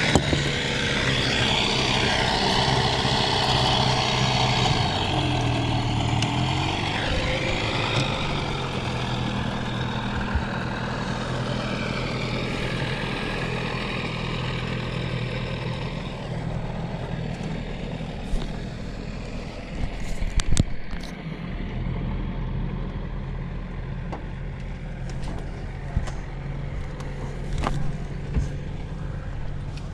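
An engine running steadily, with a few knocks and clunks about twenty seconds in.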